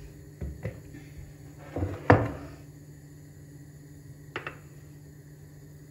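A metal spoon knocking against a glass baking dish while spreading whipped cream: a couple of light knocks under a second in, a louder one about two seconds in and a faint one past four seconds, over a steady low hum.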